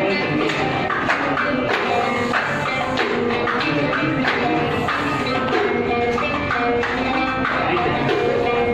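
Live Arabic music: a qanun playing plucked melodic lines over hand-percussion accompaniment, with regular percussive strikes.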